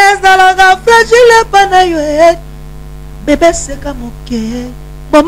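A man singing a cappella into a handheld microphone: long held phrases with a wavering pitch, broken by two short pauses, over a steady electrical hum.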